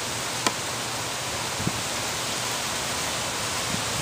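Steady, even hiss of outdoor background noise, with a brief click about half a second in.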